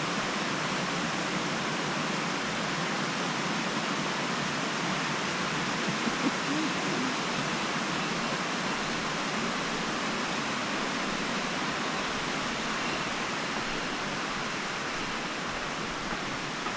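Steady rushing of Taughannock Creek's shallow water running over rocks and small riffles.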